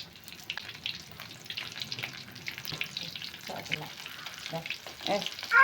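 Tofu pieces frying in hot oil in a pan, sizzling with a steady crackle.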